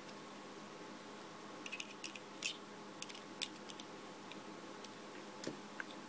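Light metallic clicks and ticks of a small screwdriver on a screw and nut in a perforated metal construction-toy strip as the screw is tightened, a few scattered clicks, most in the first half, over a faint steady hum.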